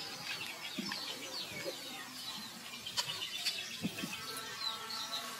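Birds chirping in the background with quick high twitters, and a few short low clucking calls and a couple of sharp clicks.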